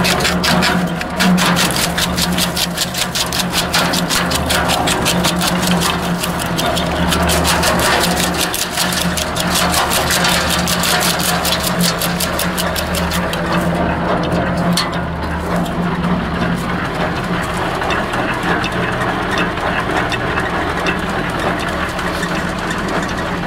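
Wood chipper running and chopping branches fed into its chute, a dense rapid clatter over a steady machine drone. About 14 seconds in, the clatter dies away and the machine runs on empty with just the drone.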